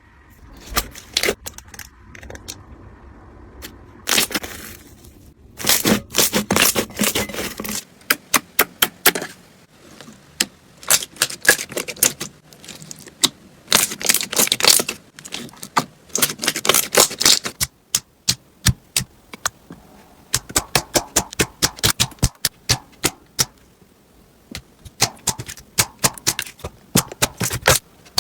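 Slime being squeezed and poked by hand, giving quick runs of sharp clicking and crackling pops in bursts of a second or two, with short pauses between them.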